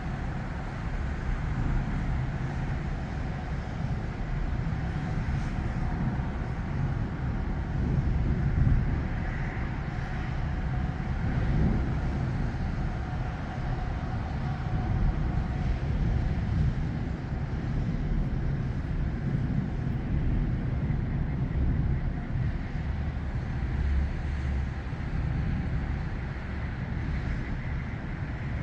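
Steady rushing noise of heavy rain, with a deep, uneven rumble underneath and small swells in loudness.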